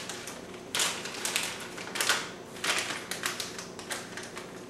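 Clear plastic disposable pastry bag crinkling and crackling in the hands as it is opened and folded over, in a run of irregular crackles.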